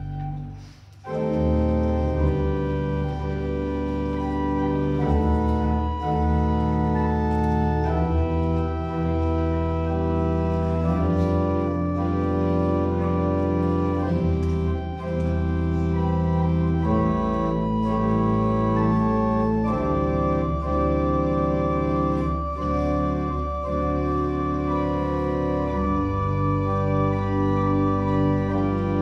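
Church organ playing sustained offertory music, held chords with a moving bass line. After a brief pause, a new phrase begins about a second in.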